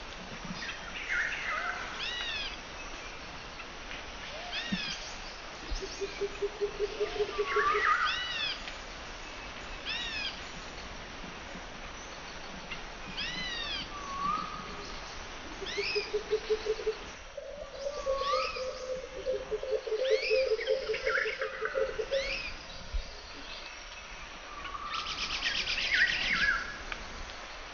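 Birds chirping and calling: many short, quick rising-and-falling chirps, with a lower rapid trill three times. All of it sits over a steady background hiss.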